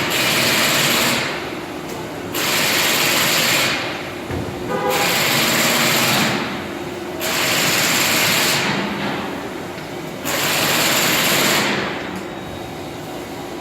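Impact wrench running lug nuts onto a wheel hub, in five bursts of a second or so each with short pauses between.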